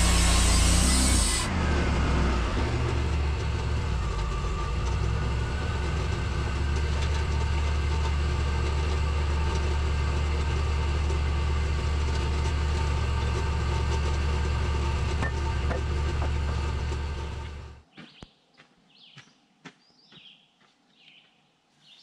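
Wood-Mizer band sawmill: a loud hiss of the blade in the cut stops about a second and a half in, and the mill's engine then runs on steadily. The sound cuts off abruptly near the end, leaving faint birdsong.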